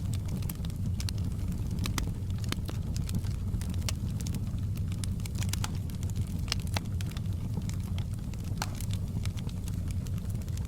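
Wood fire burning in a fireplace: a steady low rumble of flames with irregular sharp crackles and pops of burning logs.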